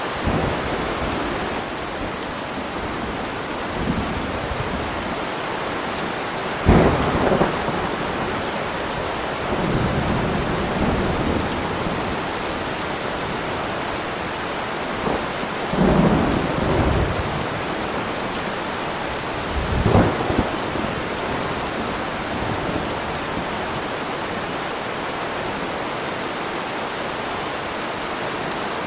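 Steady rain falling, with several rolls of thunder: a sudden crack a little under a quarter of the way in, then further rumbles near the middle and about two-thirds of the way through.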